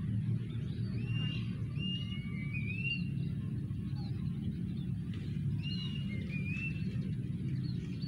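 Plaintive cuckoo calling in shrill, slurred whistled phrases. One group of notes comes about a second in and another past five seconds. Under the calls runs a steady low rumble.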